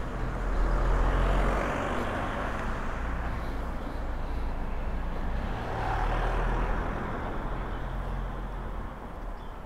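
Motorcycle engine running at low speed while riding, with road and wind noise. The sound swells twice, about a second in and again a little past the middle.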